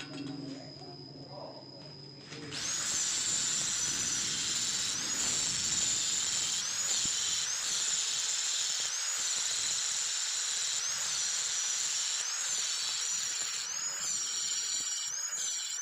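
Electric angle grinder grinding into the steel end of a motorcycle muffler to cut away the old strainer. It runs freely more quietly at first, then bites into the metal about two and a half seconds in. From then on it gives a loud grinding hiss over a high motor whine that sags and recovers roughly once a second as it is pressed into the work.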